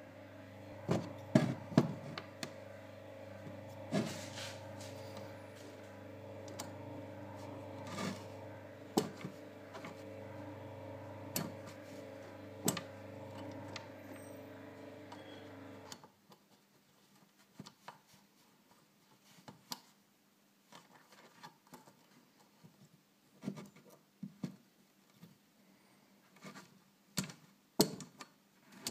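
Small parts clicking and tapping as they are handled and fitted onto the back of a Traxxas TRX 3.3 nitro model engine during a pull-start installation. A steady hum runs underneath and cuts off about halfway through.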